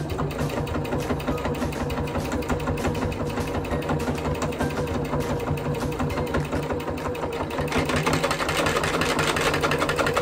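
Electric sewing machine stitching a seam: a fast, even needle clatter over the motor's hum, a little louder in the last few seconds.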